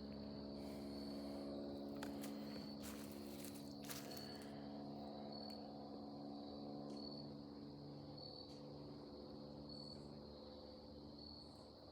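Airplane droning overhead as a steady low hum, with insects chirping in short high pulses about once a second.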